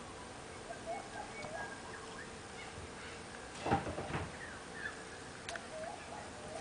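Several birds chirping and calling with short, scattered notes, over a faint steady hum. A brief rustling and knocking burst about halfway through is the loudest sound.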